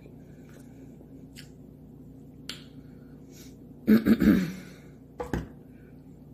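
A person's short wordless vocal sound about four seconds in, the loudest thing here, followed by a brief low knock, over quiet room tone with a few faint small clicks.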